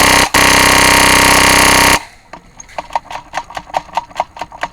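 A very loud horn blast, held for about two seconds and then cut off, the last of a series of blasts, followed by a quicker run of sharp clicks at about four a second.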